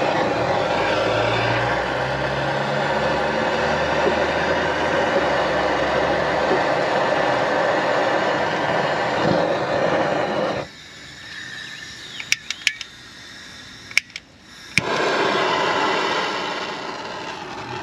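Handheld gas torch burning with a steady, rushing hiss as it heats a rusted-on control arm fastener. About ten seconds in the flame cuts out, a few sharp clicks follow, and it lights again with a click and keeps hissing.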